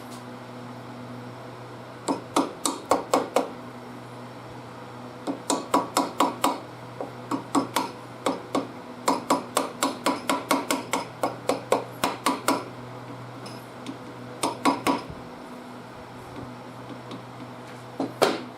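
Hammer blows on metal, in several runs of quick, ringing strikes about four a second with short pauses between, the longest run near the middle.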